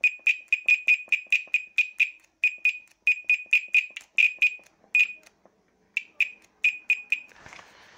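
Voltcraft VC175 multimeter's continuity beeper giving many short, high beeps, about three to four a second and unevenly spaced, breaking off for a moment about five seconds in and stopping near the end, as the new probe tips are held together. The stuttering beep is the sign of the new test leads making only intermittent contact.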